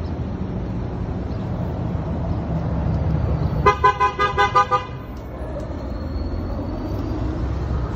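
A car horn sounds in a quick string of about six short toots near the middle, over a steady low rumble of street traffic.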